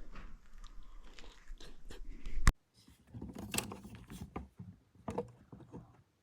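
Close-up chewing and breathing of a person eating a peach, heard on a body-worn microphone. About two and a half seconds in there is one sharp click, after which a steady low hum stops.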